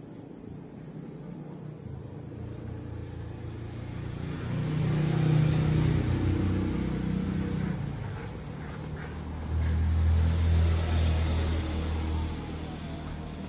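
Motor vehicle engine running close by, growing louder twice: once about four seconds in, and again near ten seconds, before fading.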